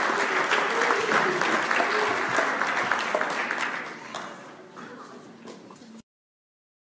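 Audience applauding a big band after its soloists are named, with a few voices in the crowd. The applause fades over a couple of seconds near the end, then the sound cuts off abruptly.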